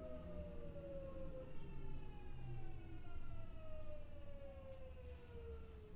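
Kintetsu 6407-series electric train's traction motors and inverter whining as the train slows, heard on board: a falling tone that steps back up about a second and a half in and falls again, over a low rumble of the running gear.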